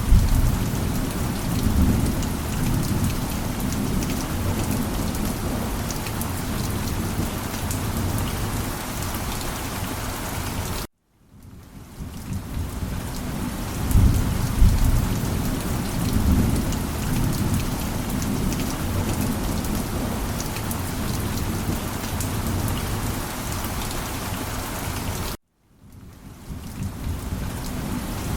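Steady heavy rain with low rolling thunder rumbles. Twice the sound cuts out suddenly and fades back in, with a thunder rumble soon after each return.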